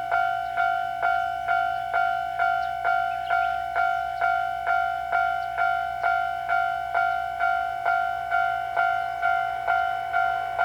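Japanese level crossing alarm ringing its steady 'kan-kan' strikes, a little over two a second, each decaying quickly: the warning that a train is approaching.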